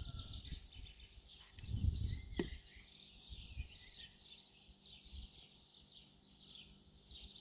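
Steady high chirping from outdoor wildlife, repeated short calls going on throughout. About two seconds in there is a low buffeting bump on the microphone, followed by one sharp click.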